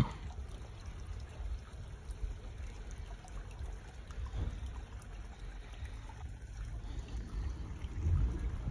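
Small garden stream trickling over rocks into a pond, with a low rumble underneath that gets a little louder near the end.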